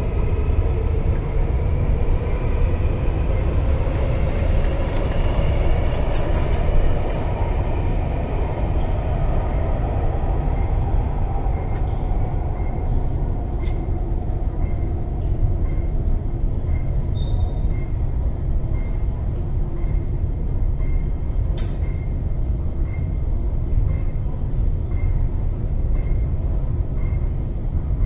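MTR Tuen Ma line IKK electric train pulling out of the station: its traction motors whine, rising in pitch as it accelerates away, and the whine fades out after about ten seconds over a steady low rumble. Faint short pips repeat about once a second in the second half.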